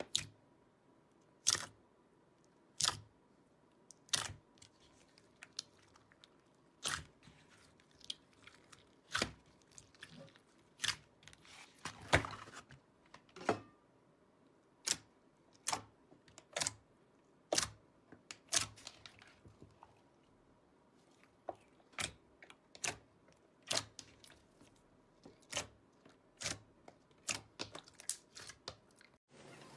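Slime being pressed and squeezed by hand, giving sharp crisp pops and clicks about once a second.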